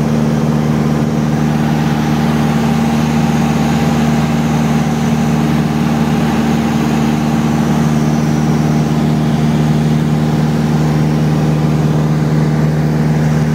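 Light aircraft's engine and propeller heard from inside the cabin in cruising flight: a loud, steady drone.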